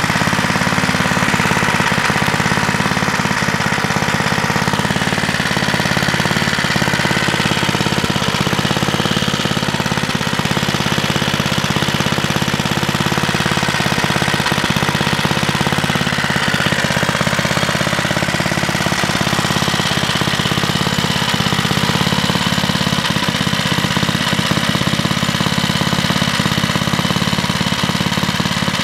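Small vintage air-cooled single-cylinder engine idling steadily with a rapid, rattly firing beat. It is warming up on its first run after sitting some 20 years, so that the old oil can be drained.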